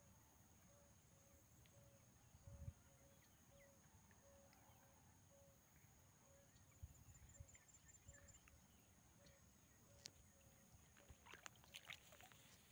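Near silence: faint outdoor ambience with a steady high hum and a soft note repeating a couple of times a second, broken by a few low thumps and light clicks near the end.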